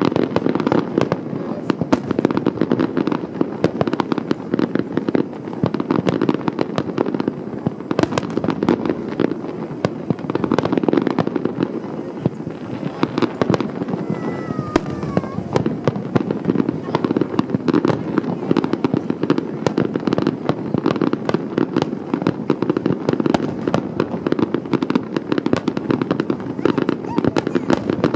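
Fireworks bursting in a dense, continuous barrage of rapid bangs and crackling.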